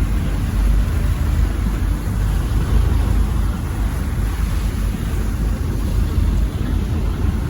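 A steady, loud, low rumbling noise with no distinct tones.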